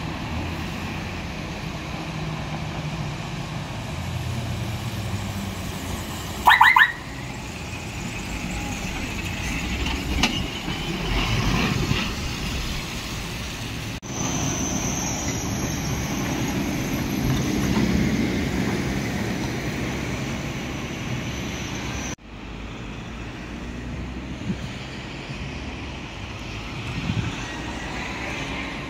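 Heavy trucks and other traffic driving past on a town street: steady engine and tyre noise that swells as a lorry goes by, with a short, loud horn blast about six and a half seconds in.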